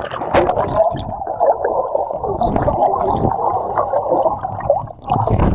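Muffled underwater bubbling and churning of seawater, heard by an action camera dipped under the surface as swimmers move around it, with a splash just after the start as it goes under.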